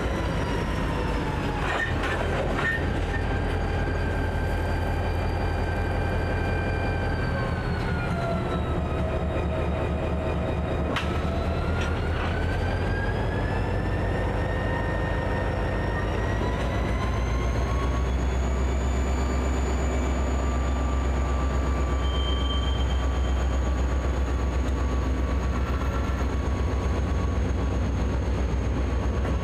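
Diesel locomotive working a rail yard: a heavy engine rumble whose pitch sinks over several seconds, then climbs again as the throttle changes, and holds higher. A couple of sharp clanks come near the start and about a third of the way in.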